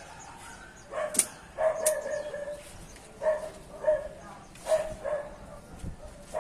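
A dog barking over and over, starting about a second in, with a couple of sharp clicks among the first barks.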